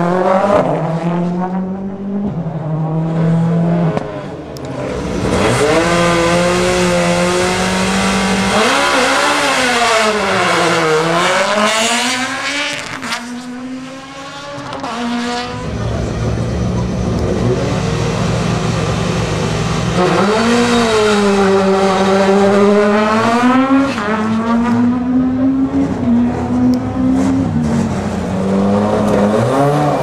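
Turbocharged four-cylinder World Rally Car engines running and revving as the cars drive through. For the first few seconds the engine note is steady; after that the pitch swoops down and back up sharply several times.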